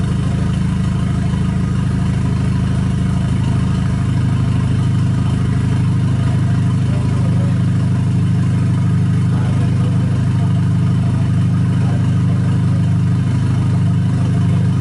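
Car engine running at a steady speed, a constant low drone with no revving.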